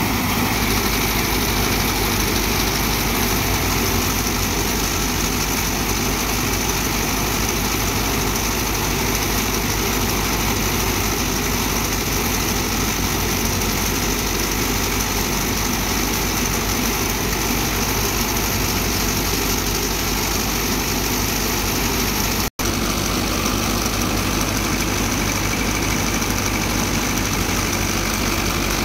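Mahindra Yuvo Tech+ 575 DI tractor's diesel engine running steadily while it drives a threshing machine, the thresher's drum adding a dense, steady rush over the engine's hum. The sound breaks off for an instant about three-quarters of the way through.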